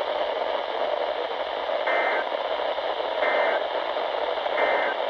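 NOAA Weather Radio receiver hissing with static, broken by three short digital data bursts about a second apart: the EAS/SAME end-of-message code that closes a broadcast alert test.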